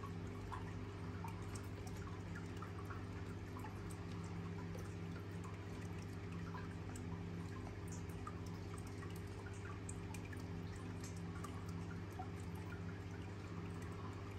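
A steady low hum with faint, scattered drip-like ticks over it.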